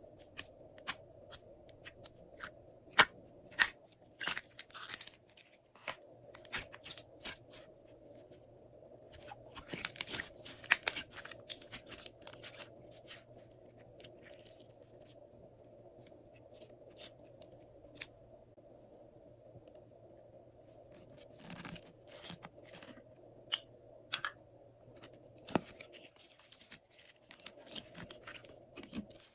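Glossy slime being kneaded and stretched by hand, giving irregular sticky clicks and crackles, with a dense run of them about ten seconds in and again past the twenty-second mark.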